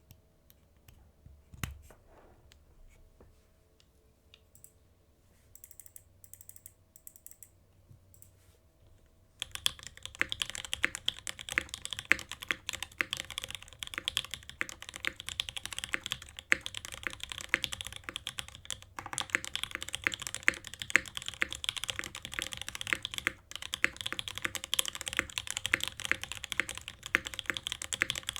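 Typing on an Iron165 R2 65% mechanical keyboard with lubed OP Black switches, aluminum plate and case, and GMK keycaps. Mostly quiet with a soft thump and a few light clicks at first, then fast, continuous typing starting about nine and a half seconds in.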